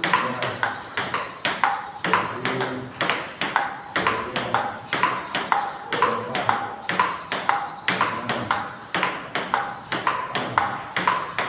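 Celluloid-type table tennis balls clicking off rubber paddles and bouncing on the table in a fast multiball forehand drill: several sharp clicks a second in an even, unbroken run as balls are fed and hit back one after another.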